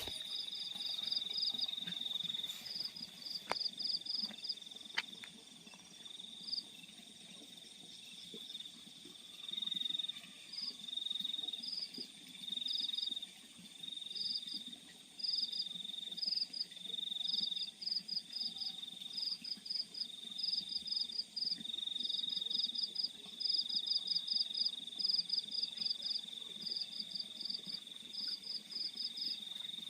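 Crickets calling in a field at night. One keeps up a high trill in repeated bouts, each about half a second to a second long. Another gives quick runs of short chirps at a slightly higher pitch, coming more often in the second half.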